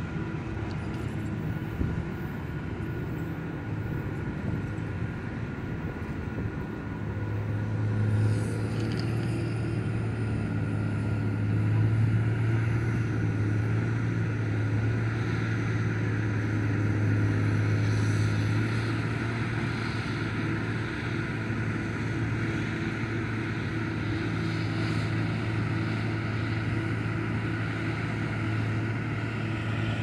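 A steady, low engine drone that comes in about seven seconds in and holds at one pitch, over a light background rush.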